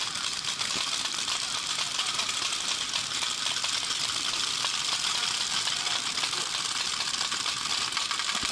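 Many paintball markers firing across the field at once: a dense, unbroken stream of rapid pops and clicks with no pause.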